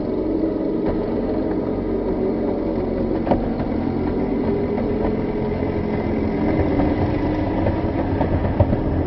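An engine running steadily at a low, even speed, its pitch drifting slightly, with a sharp click about three seconds in.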